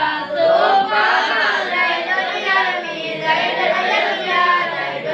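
Young students' voices chanting a nadham, rhymed verses on Arabic grammar (nahwu and sharaf), recited to a sung melody in Acehnese.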